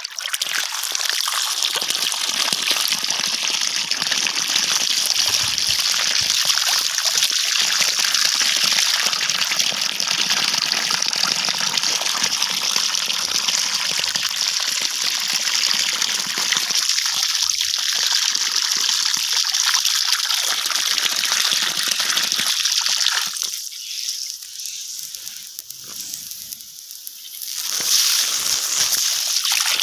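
Strong jet of water from a hose fed by a 12 V DC pump, gushing and splashing onto wet soil and a small plant, a steady hiss of spray at full pressure. The spray goes quieter for a few seconds near the end, then picks up again.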